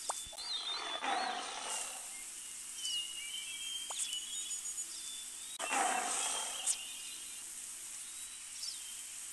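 Two rough animal roars, each about a second and a half long, near the start and about six seconds in, over a steady background of chirping birds.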